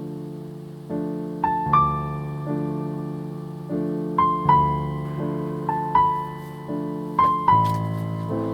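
Soft solo piano background music: held chords that change about once a second, with single high melody notes struck over them.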